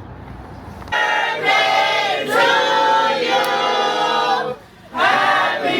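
Music with a group of voices singing long held notes, coming in abruptly about a second in, with a brief break near the end.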